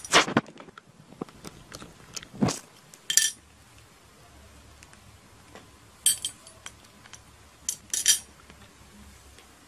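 Glass ornament clinking and knocking as a sun conure pecks at it with its beak and pulls out beads: several sharp clinks and taps, spaced irregularly, the loudest near the start.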